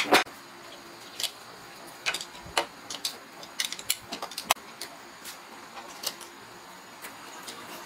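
Irregular sharp clicks and light metal taps from hand tools working on an electric water pump motor's end cap and shaft, the loudest right at the start.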